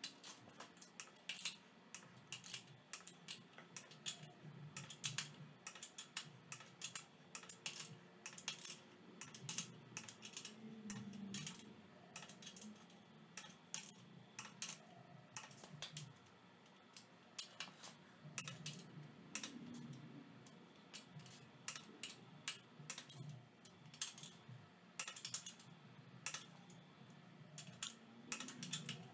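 Click-type torque wrench ratcheting in quick, irregular runs of sharp clicks, with pauses, as the small-block Chevy's main bearing cap bolts are run down and torqued in steps.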